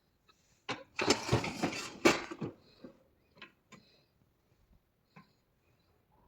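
Bosch dishwasher being handled: about a second of rattling as a rack or its contents move, then a knock and a few scattered light clicks.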